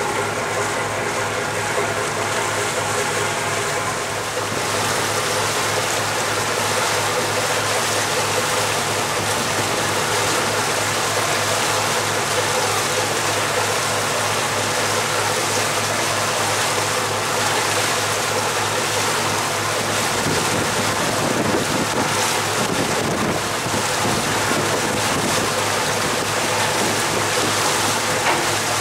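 River pusher tug's diesel engines running steadily, with the rushing hiss of its propeller wash churning the water at the stern. The water noise swells about four seconds in and holds steady.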